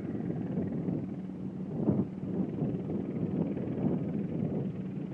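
A passing airplane's steady low engine drone under gusty wind buffeting the microphone, with a stronger gust about two seconds in.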